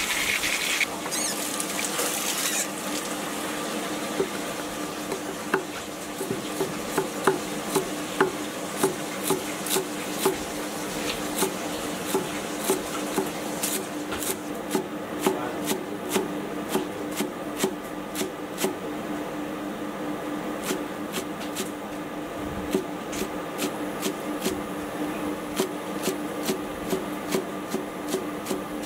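Chinese cleaver chopping vegetables on a thick wooden chopping block: steady strokes at about two a second, lighter and quicker in the second half, over a steady low hum. A brief rushing noise comes at the very start.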